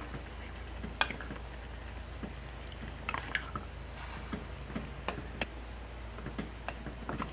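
Water being added to a pot of kimchi stew, with scattered clinks and knocks of a utensil against the pot and light liquid sounds, over a steady low hum.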